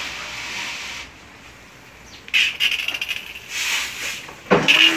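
Pressure washer in use on a fish: a few irregular bursts of hissing noise, then near the end the washer's electric motor kicks in with a sudden steady hum.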